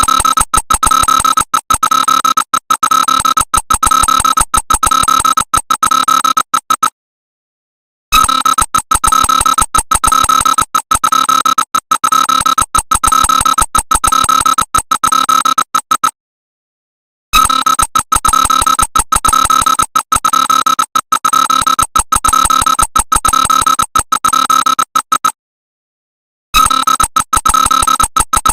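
Emergency alert alarm: a loud, harsh electronic tone that stutters rapidly. It sounds in blocks of about eight seconds, broken by short silences about seven, sixteen and twenty-five seconds in.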